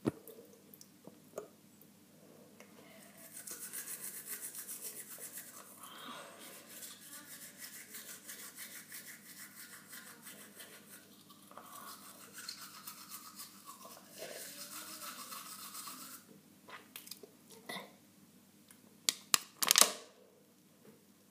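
Toothbrush scrubbing teeth in quick back-and-forth strokes, a rapid hissing scrub that stops and starts. A few sharp, loud knocks come near the end.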